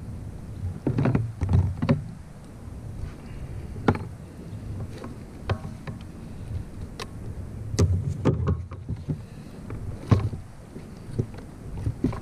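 Scattered, irregular knocks and clicks of gear and a landed bass being handled in a plastic fishing kayak, over a low steady rumble.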